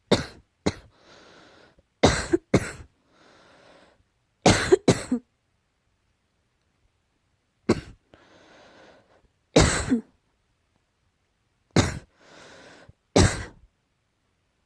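A person coughing: short, sharp dry coughs, mostly in pairs, about ten in all over several seconds. Between the groups there is a quieter, breathy intake of breath.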